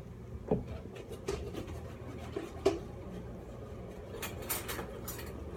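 Scattered light knocks and brief rustles of hands handling things in a kitchen, over a faint low hum.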